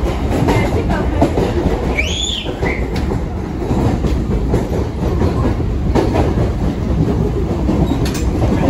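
Mumbai suburban local train running, heard from inside the coach: a steady loud low rumble with faint knocks of the wheels on the rails, and a brief high squeal about two seconds in.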